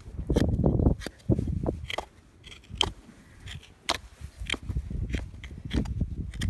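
Hoof knife paring horn from a horse's hoof: scattered crisp cuts and scrapes, with bursts of low rumbling in the first second.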